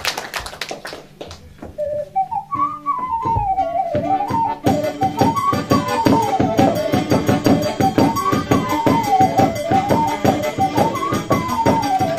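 Folk dance tune led by a flute-like melody that winds up and down, entering about two seconds in; a fast, busy rhythmic accompaniment joins about five seconds in.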